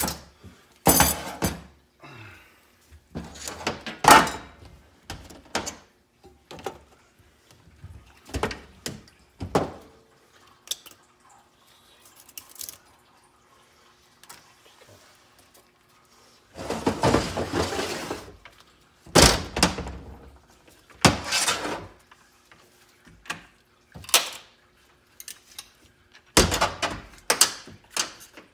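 4L60E transmission drums and clutch plates knocking and clattering as they are handled and set down on a metal workbench: a series of separate clunks, with a longer clatter lasting a couple of seconds a little past halfway.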